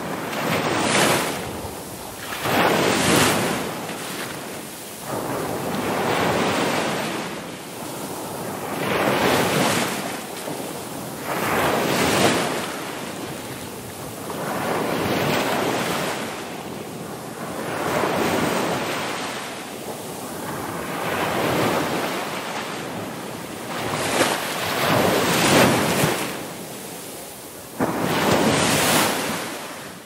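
Ocean surf: waves breaking and washing in, a continuous rush that swells and fades about ten times, every two to four seconds.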